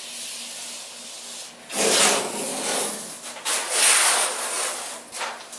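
Blue painter's tape being pulled off its roll in long strips: a loud, rasping tearing noise that starts about two seconds in and comes in several pulls.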